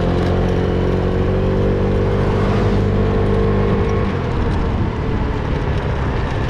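Motor vehicle engine running under a steady rush of road and wind noise; the engine note sinks slightly and drops away about four seconds in.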